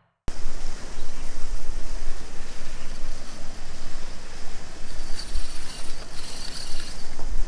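Wind buffeting an action camera's microphone outdoors: a steady, loud rushing rumble that starts a moment in, with a little extra hiss near the end.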